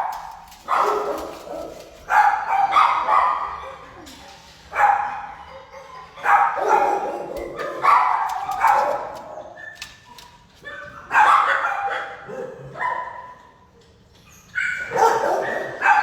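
Dogs barking in kennels, in repeated bursts of barks that start sharply and ring on in the hard-walled room before fading, with brief quieter gaps between.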